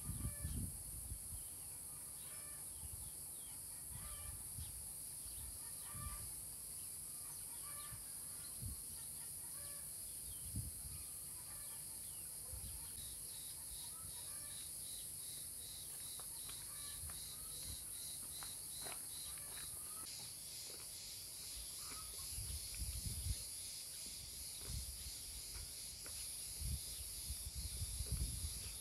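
Rural outdoor ambience: a steady high-pitched insect drone, pulsing rapidly for a stretch in the middle, with scattered short bird calls. A few low bumps come near the end.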